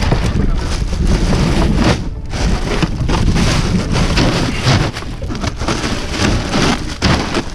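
Crushed ice crunching and rattling as hands pack it down over a fish in a boat's fibreglass fish box, a dense, continuous crackle with a heavy low rumble underneath.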